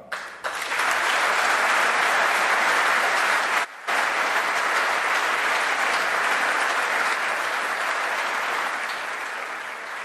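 Applause from a large seated assembly of parliament members, a dense even clapping that builds up within the first second. It drops out briefly about three and a half seconds in, then slowly dies away toward the end.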